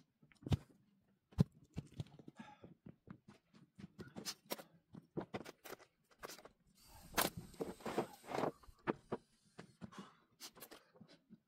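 Footsteps and scattered knocks on loose wooden pallet boards, with a short run of a cordless drill-driver screwing into a pallet about seven seconds in, the loudest sound.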